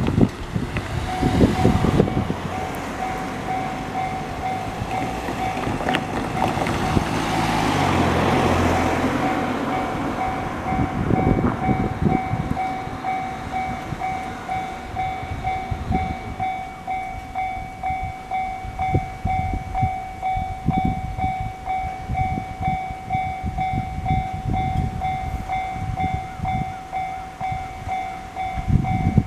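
Japanese level crossing alarm ringing: a steady, rapidly pulsing electronic bell that starts about a second in and keeps going. A road vehicle passes around the middle, and in the second half a two-car JR local train runs through the crossing with repeated wheel knocks.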